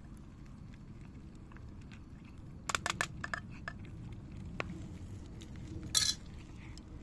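Cat-food containers clinking as they are handled: a quick cluster of sharp clinks about three seconds in, then one louder, brief sound near the end.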